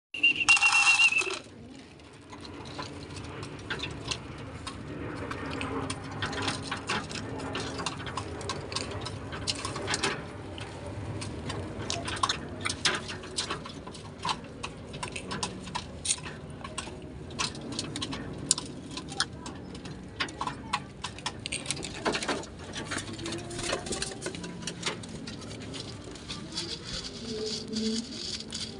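Pigeons pecking grain from a feed bowl: a dense, irregular run of sharp clicks and ticks. A loud, high warbling trill sounds for about a second at the very start.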